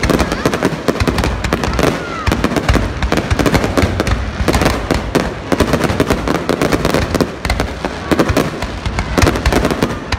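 Aerial fireworks shells bursting in a dense, unbroken barrage of bangs and crackles.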